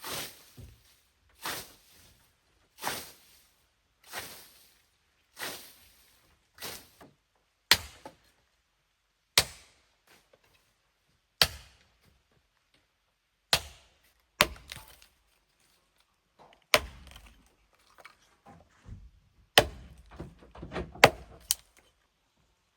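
Wood being chopped with an axe: single blows a second or two apart, softer at first, then sharp, loud cracks, with a quick cluster of hits near the end.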